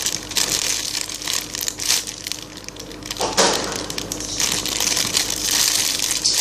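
Plastic packaging crinkling and rustling as a squishy toy is handled, in irregular bursts of rustle, loudest about three seconds in.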